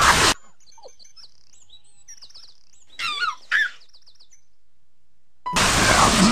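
Loud TV static hiss that cuts off just after the start, giving way to birds chirping and tweeting, with a louder warbling call about three seconds in; the static hiss comes back loud near the end.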